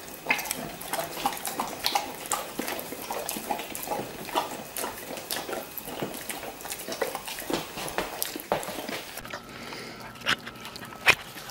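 Dogs smacking and licking their mouths on sticky peanut butter: a fast, irregular run of wet smacking clicks.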